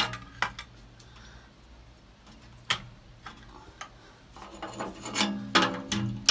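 Hand-handling noises on a tractor: scattered sharp clicks and knocks with some rubbing, including a sharp knock about three seconds in. A busier stretch of rustling and clatter comes near the end.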